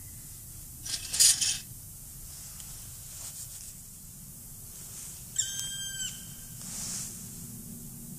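A short, loud rustle about a second in, then a single whistled call from a small bird, held for under a second and dipping slightly at the end.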